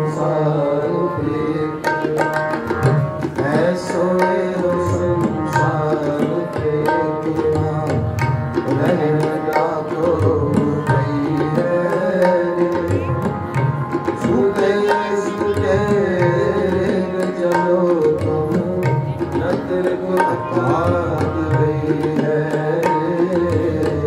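Harmonium and tabla playing an instrumental passage of Sikh kirtan. The harmoniums hold a steady stack of reed notes under a fast, continuous run of tabla strokes.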